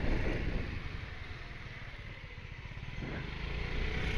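Honda moped's engine running as it rides along, with a low rumble. The sound eases off about a second in and builds again near the end.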